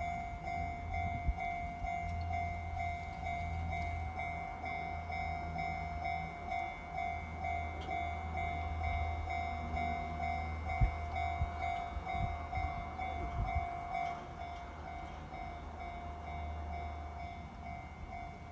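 Japanese railway level crossing warning bell ringing in rapid, evenly repeated dings, over the low rumble of a Kintetsu train passing with a few clicks from the wheels.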